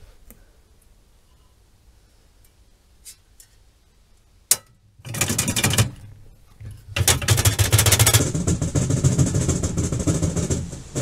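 Rapid rattling and scraping at a concrete-pipe box trap: a single sharp click about four and a half seconds in, then loud clattering in two spells, the second lasting about four seconds.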